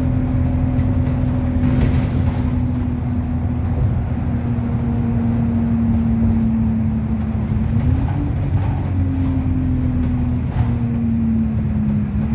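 Alexander Dennis Enviro200 single-deck bus driving, heard from inside the passenger saloon: a steady engine drone with a droning whine that sinks slowly in pitch, then rises briefly about eight seconds in and again near the end. A few short rattles come through, one about two seconds in and one near eleven seconds.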